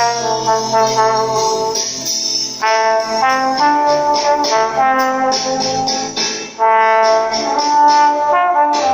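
Trombonito, a compact valve trombone, playing a melody of held notes with a light percussive accompaniment behind it.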